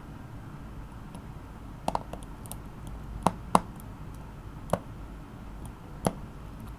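Small sharp clicks of a precision screwdriver and tiny screws against the iPhone 5's internal metal cover as the screws are fitted. There are about half a dozen clicks at irregular spacing over a steady low hum.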